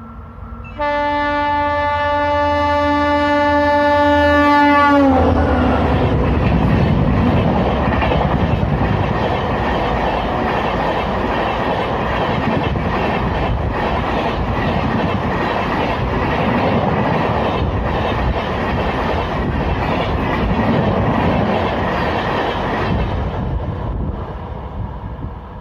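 An Indian Railways express locomotive sounds a loud horn for about four seconds, its pitch dropping as it passes. The coaches then rush by at high speed with rapid clickety-clack from the wheels, dying away near the end.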